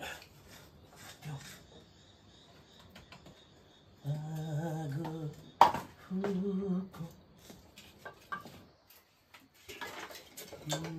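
Dry sticks and kindling being handled and laid into a clay wood-burning stove, with light clicks and rustles of wood. Partway through, a man's voice briefly hums without words, split by one sharp knock.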